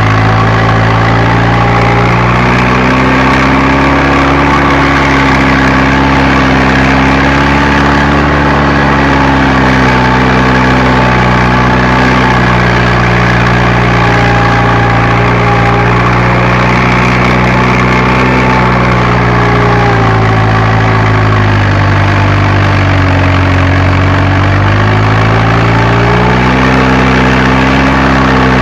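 Fiatagri tractor's diesel engine running steadily under working load while preparing a seedbed, heard from the cab; its pitch sags for a few seconds about two-thirds of the way through and then recovers.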